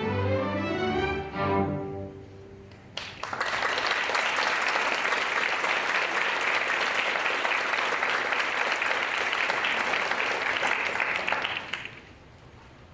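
String orchestra playing the closing notes of a piece, which stop about two seconds in. About a second later the audience breaks into applause, which holds steady and then dies away near the end.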